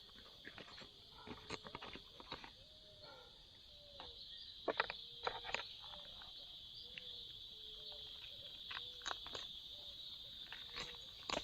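Steady, high-pitched chorus of insects, with a short low call repeating about once a second from some other animal, and scattered clicks and knocks, the loudest about five seconds in.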